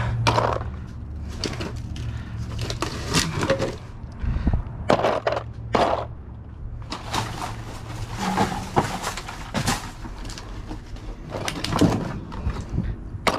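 Used metal oil filters clanking and rattling as they are picked through and tossed in a dumpster: irregular knocks, clatters and scrapes.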